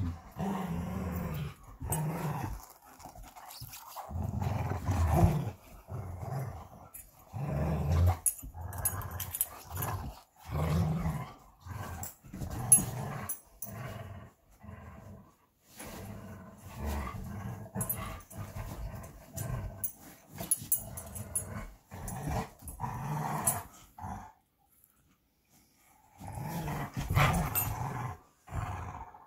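Belgian Malinois growling in play while tugging over a toy, in many short, repeated bouts. There is a pause of about two seconds near the end.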